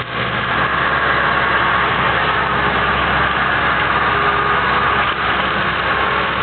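Excavator running steadily while working a cutter attachment.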